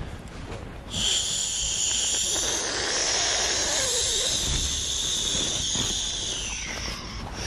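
A person's long, high-pitched whine that sounds like a kettle going off, a drawn-out noise of indecision. It starts abruptly about a second in, holds steady for about six seconds, then dips slightly in pitch as it fades.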